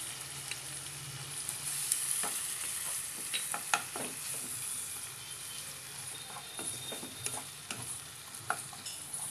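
Onions, tomatoes and ginger-garlic paste sizzling in hot oil in a nonstick kadai. A spatula stirs them, scraping and tapping against the pan now and then.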